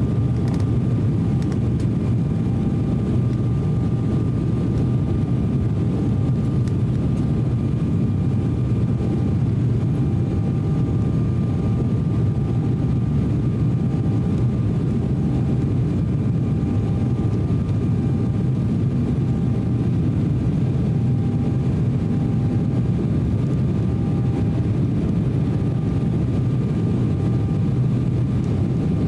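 Steady cabin noise of an Embraer E190 airliner climbing out after takeoff: a low, even rumble of its two GE CF34 turbofan engines and airflow, with faint steady whine tones above it.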